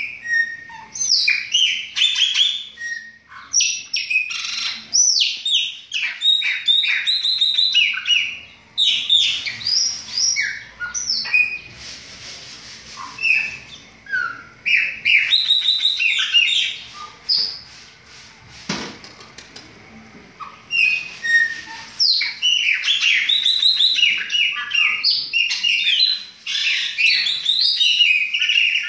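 Chopi blackbirds (pássaro-preto) singing: a dense run of loud whistled notes and chirps, quieter for a few seconds about two-thirds of the way through.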